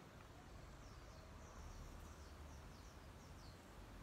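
Quiet outdoor background noise with a small bird calling: short, high, descending chirps a few times a second, starting about a second and a half in.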